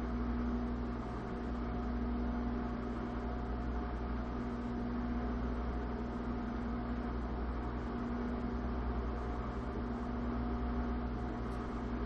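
Microwave oven running with a steady hum and low drone, heating a lidded glass mason jar of sugar solution.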